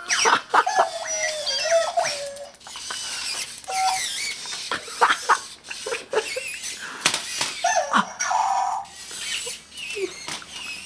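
Robopet toy robot dog giving off high electronic squeaks and chirps that jump in pitch, with sharp clicks and knocks as a dog tussles with it.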